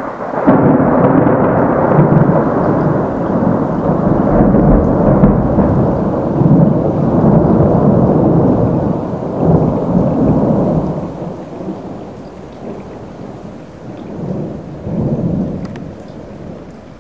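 A long peal of thunder rumbling. It comes in suddenly about half a second in, stays loud for around ten seconds, then fades, with a smaller second rumble near the end.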